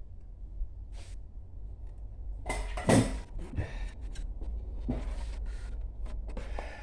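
Clicks, knocks and rattles of the Sharp CD-S370 stereo being handled and tested, with a louder clatter about three seconds in.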